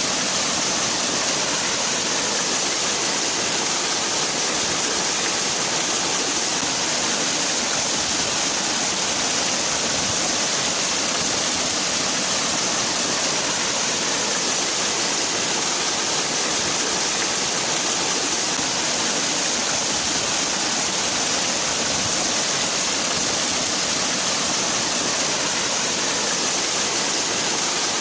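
Waterfall: water falling and splashing in a steady, unbroken rush with no changes.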